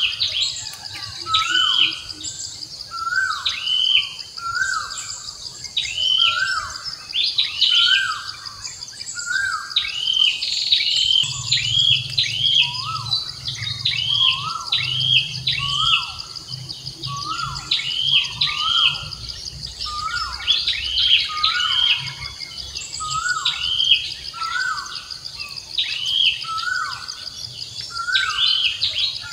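Birds calling over a steady insect drone: one call that falls in pitch repeats about once a second, with higher chirps in between.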